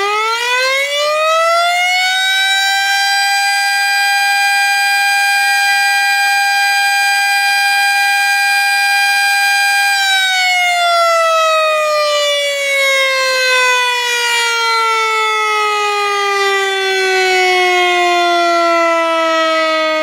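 Civil defense siren finishing its wind-up to a steady high wail, holding that pitch for several seconds, then winding slowly down in pitch about halfway through.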